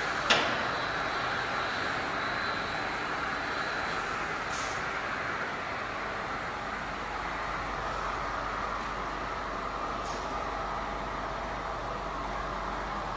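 Multi-saw circular-saw cant-making machine running with a steady whirring noise, with a sharp knock just after the start and a short hiss about four and a half seconds in.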